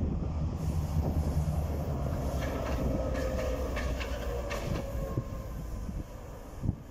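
Two coupled diesel locomotives running light along the track, their engines giving a steady low rumble. In the middle comes a run of sharp wheel clicks over rail joints with a faint thin whine, and the sound fades slightly toward the end as they move away.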